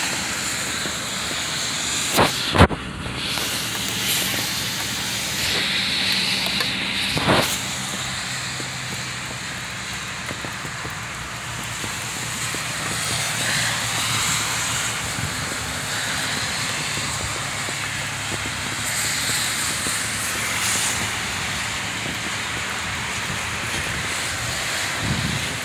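Heavy rain falling steadily, a constant hiss on wet pavement, with a few sharp knocks about two seconds in and again around seven seconds.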